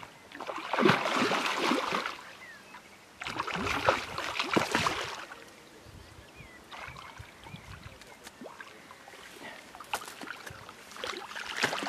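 Hooked carp splashing at the lake surface in bursts as it is played in close and brought toward the landing net, with a quieter stretch in the middle.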